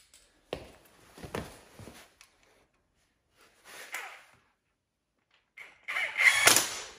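Short clicks and knocks of metal parts and tools being handled at a motorcycle's front wheel hub, with a brief noise about four seconds in and a louder, longer noise from about six seconds in.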